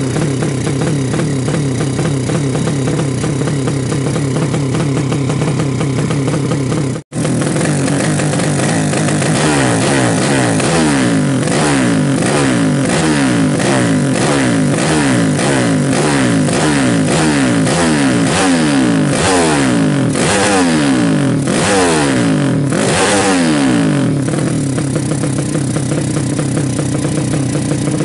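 A 200cc single-cylinder drag-bike engine on an open racing carburettor idles, then is blipped repeatedly by the throttle. Its pitch rises and falls about a dozen times before it settles back to a steady idle near the end. This is revving while the carburettor is being set up. The sound drops out for an instant about seven seconds in.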